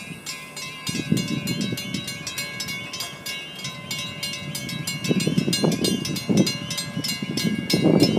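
Railroad grade-crossing warning bells ringing in rapid, even strokes, several a second, with a lingering ring, as the crossing gates come down for an approaching train. Irregular low rumbling gusts run underneath.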